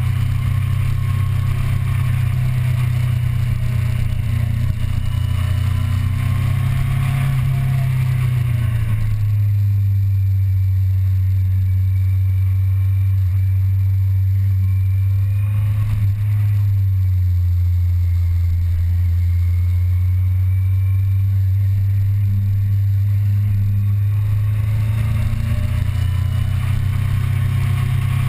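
Motorcycle engine heard from on board while riding, a steady low drone. Its pitch drops about nine seconds in and again around sixteen seconds as the rider eases off, then climbs back up near the end as the bike accelerates.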